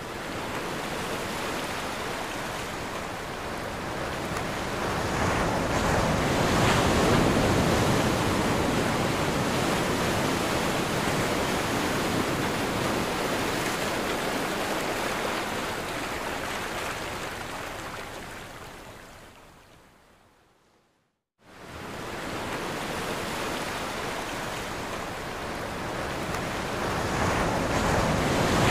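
Ocean surf, a steady rush of noise that slowly swells and eases. About two-thirds of the way through it fades out to silence, then starts again a second later.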